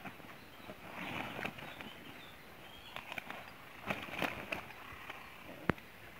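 Rustling and flapping of a fabric carp sack being handled on an unhooking mat, in a few short bursts, with one sharp click near the end.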